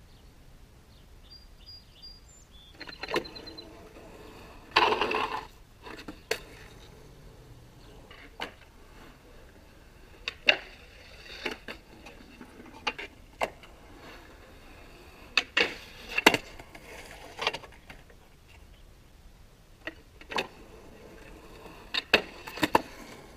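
Skateboard in a dry concrete fountain bowl: a string of sharp clacks and knocks as the board is popped, lands and strikes the concrete, with a louder, longer noise lasting under a second about five seconds in.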